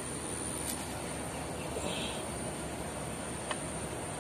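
Steady outdoor background noise with a constant thin high-pitched whine over it, and two faint ticks, one near the start and one about three and a half seconds in.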